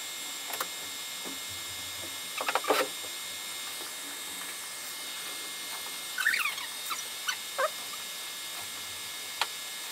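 Stepper motors of a home-built diode-laser fabric cutting table whining in short squeaky bursts that slide up and down in pitch as the laser head traces small cuts, over a steady background hiss.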